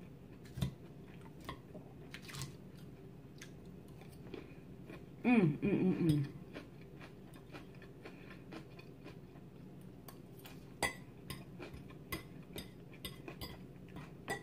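Fork clicking and scraping on a plate and soft chewing of salad, in short scattered clinks. About five seconds in, a brief hummed voice sound with a falling pitch.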